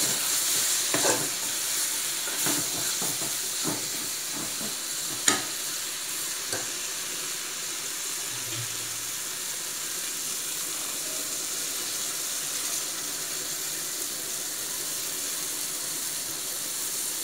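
A mushroom and tomato masala sizzles steadily as it fries in a metal pan. A steel spoon scrapes and clicks against the pan a few times in the first several seconds, with the sharpest click about five seconds in.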